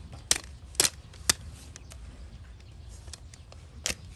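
Hoof nippers snapping through the thick, overgrown horn of a donkey's hoof wall: four sharp cracks, three in the first second and a half and one near the end.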